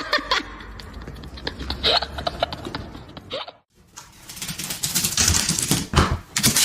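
Rapid, irregular clicking and tapping, broken by a brief silence about three and a half seconds in, then denser clatter.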